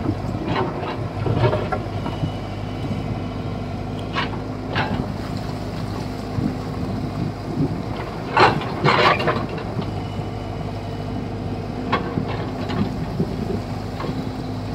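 Excavator engine running steadily, with a few short scrapes and knocks of the bucket working rock and earth, the loudest a cluster about eight to nine seconds in.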